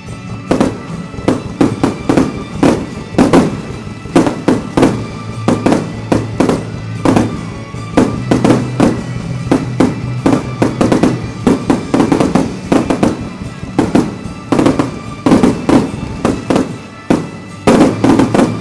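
Fireworks going off in rapid succession, sharp bangs about two to three a second starting about half a second in, loudest near the end. Music plays underneath.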